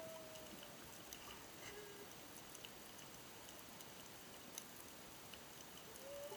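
Humpback whale song heard underwater: a long call that rises and then holds, ending just under a second in, a short lower note about two seconds in, and another rising call starting near the end, over a faint hiss with scattered clicks.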